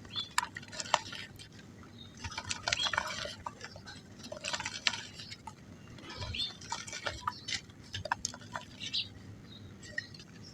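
Soft mud crumbling into water: crackly, gritty crunching with small wet splashes, in short bursts every second or two.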